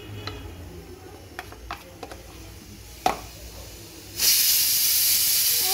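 Light knocks and taps of a knife against a plate while sandwiches are cut, one sharper knock about three seconds in. About four seconds in, a loud, steady hiss starts suddenly and becomes the loudest sound.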